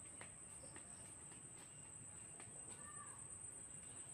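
Faint, steady, high-pitched insect drone, with a short bird chirp about three seconds in.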